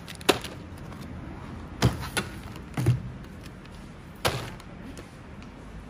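About five sharp knocks and clatters as packaged toiletries (plastic body-wash bottles, packs of wipes, a small box) are set down on a supermarket checkout conveyor belt, over a steady background hum.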